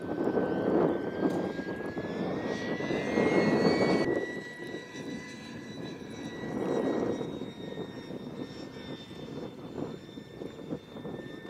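Electric ducted fan of an RC model jet whining in flight. Its pitch rises a little about two to four seconds in, then holds steady. Surges of rushing air noise come and go over it, loudest in the first four seconds.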